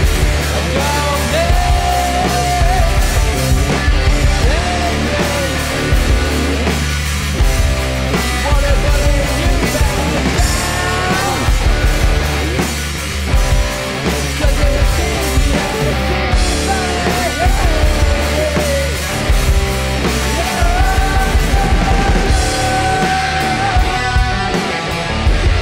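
Punk-rock band music: a drum kit played hard under electric guitar, with held, bending lead notes over the top.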